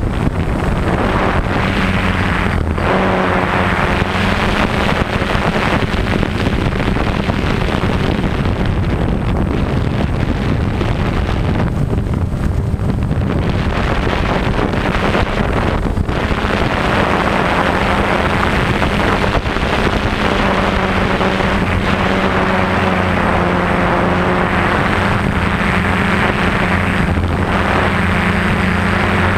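Electric motors and propellers of a camera-carrying radio-controlled aircraft, a steady hum made of several tones that shift in pitch now and then as the throttle changes, with wind rushing across the microphone.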